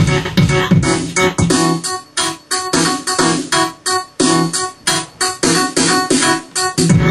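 A self-made beat on a keyboard workstation: electric piano chords over a steady, evenly repeating drum pattern.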